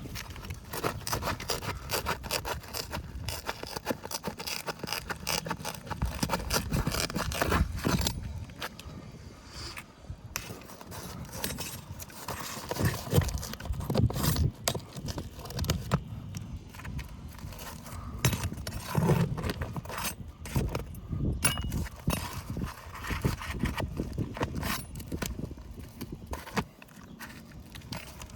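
Metal roofing tools (a flat pry bar and a roofing snake) scraping and prying at asphalt shingles, with many short clicks and knocks as the shingles are worked loose from their nails.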